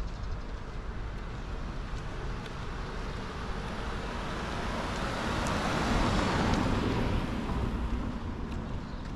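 A car passing by, its noise swelling to a peak about six seconds in and then fading away.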